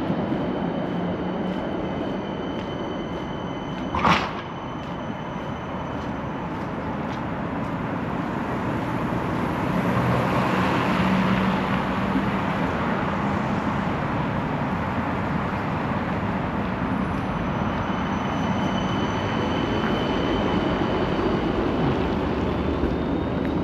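Steady street noise of passing vehicles, swelling as one goes by around ten seconds in, with a single sharp click about four seconds in.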